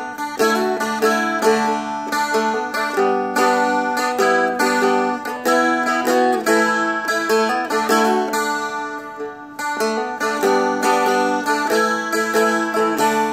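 Seagull Merlin, a small four-string fretted dulcimer-style instrument, played solo: a picked melody of quick notes over strings that keep ringing underneath, playing the verse of the tune through.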